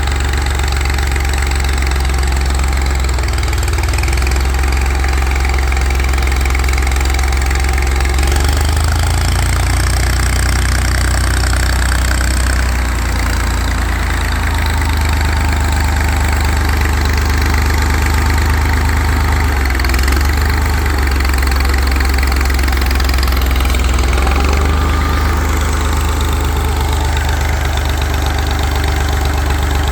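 Tractor engine running at a steady idle, loud, its speed stepping up and down several times as the tractor is maneuvered.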